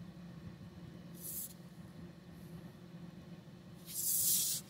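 A hand rubbing across the tread of a badly worn tire: a short scrape about a second in and a longer, louder one near the end, over a faint steady hum.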